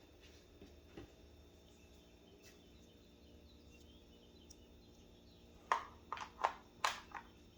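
Umarex HDR 68 magazine being loaded with .68-calibre HP68 rounds: after a few quiet seconds of faint room tone, a quick run of about six sharp clicks in a second and a half as rounds are pushed in.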